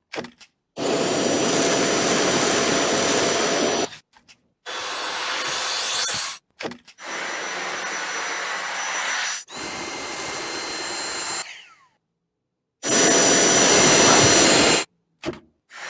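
Vacuum cleaners running in a string of short clips that cut in and out abruptly. Each is a steady rushing noise with a thin high motor whine. In the fourth clip the motor winds down with a falling whine.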